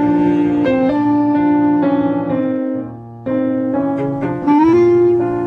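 Background music: a piano melody of held notes, with a brief drop in level about three seconds in.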